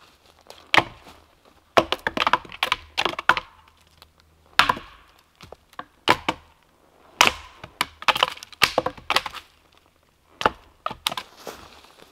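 A wooden stick beaten and scraped against a tree trunk and branches, sharp cracks and knocks in irregular bursts with short pauses between them. This is raking a tree to imitate a bull elk thrashing it with his antlers.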